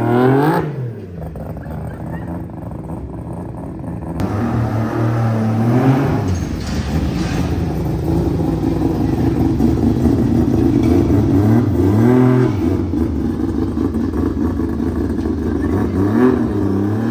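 Mazda RX-7's rotary engine idling, blipped briefly to higher revs and dropping back, about four times: at the start and about five, twelve and sixteen seconds in.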